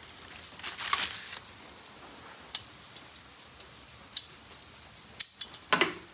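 Aluminium foil crinkling as a foil-wrapped trout is handled with steel tongs, then a scatter of sharp metallic clicks as the tongs clack and tap.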